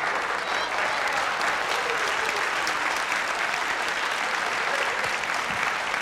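Theatre audience applauding steadily after a comedy punchline.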